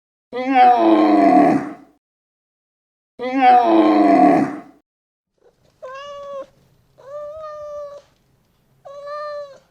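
Animal calls: two loud, harsh calls that fall in pitch, followed by three shorter, quieter calls, each held at a steady pitch.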